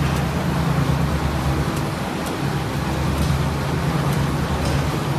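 Steady mechanical hum with a low drone and a few faint ticks.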